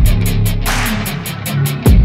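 Background music: an instrumental hip-hop beat with deep bass notes that fall steeply in pitch twice, steady bass underneath, and fast, regular hi-hat ticks.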